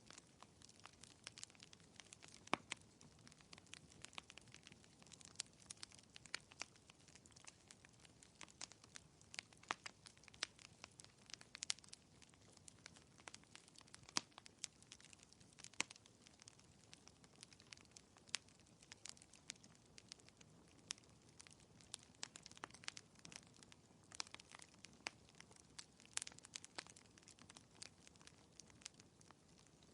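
Faint crackling of a wood fire in a fireplace: irregular pops and snaps over a soft low hiss.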